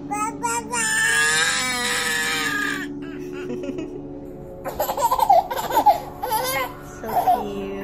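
Background music, with a long wavering vocal squeal over the first three seconds, then a baby laughing in short choppy bursts from about five seconds in.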